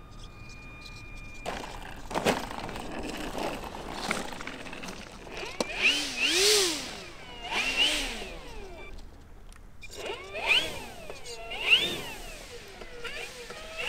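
Electric RC model airplane motor and propeller blipped up and down four times, the pitch rising and falling with each throttle pulse, after a single knock about two seconds in.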